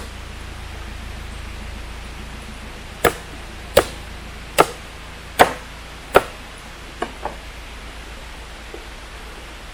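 Chopping: five sharp strikes about three-quarters of a second apart, starting about three seconds in, followed by two lighter knocks.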